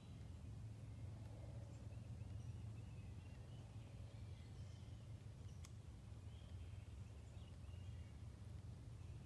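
Quiet outdoor ambience: faint, scattered bird chirps over a steady low rumble, with one sharp click about five and a half seconds in.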